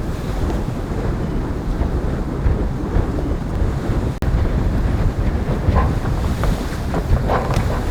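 Wind buffeting the microphone and water rushing past the hull of a racing sailboat under way, a steady rumbling noise with a brief drop about four seconds in. A few short clicks or creaks come through in the last few seconds.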